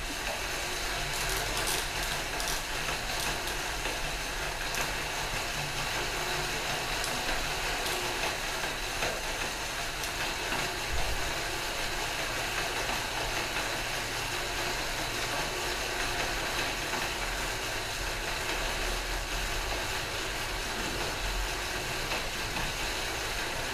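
Two stationary exercise bikes whirring steadily as their flywheels spin under hard sprint pedalling, with a few faint clicks from the drive.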